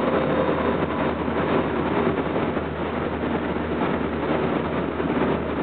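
Tokyo Metro 07 series electric train running at speed, heard from inside the car: a steady rumble of wheels on rail and body noise.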